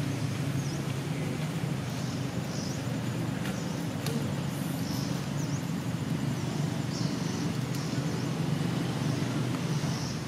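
Steady low rumble of background noise, with faint short high chirps now and then.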